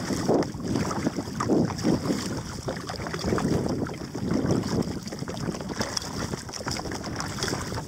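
Wind buffeting the camera microphone in uneven surges, over the splashing of a double-bladed kayak paddle dipping into the river.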